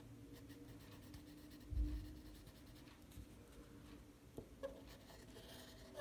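Felt-tip marker tip rubbing across paper as lines are drawn, faint scratchy strokes with a brief hiss near the end. A low thump about two seconds in, the hand or pen knocking the table, is the loudest sound, with a couple of small clicks later and a faint steady hum underneath.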